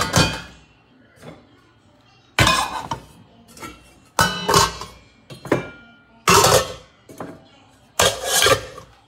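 Glass pot lids with stainless steel rims clinking and clattering against each other and a wire lid rack as they are handled and set down, in about five separate bursts, some leaving a brief metallic ring.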